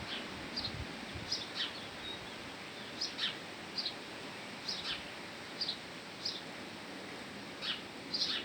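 A small bird chirping: short, high chirps repeated irregularly, about one or two a second, over a steady background hiss.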